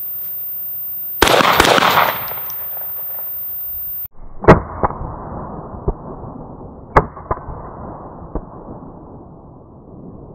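Saiga 12-gauge shotgun fired at steel popper targets about a second in, a quick blast of shots. Then slowed-down audio of the slow-motion replay: a deep, muffled rumble with a few separate low bangs as the poppers are hit and knocked over.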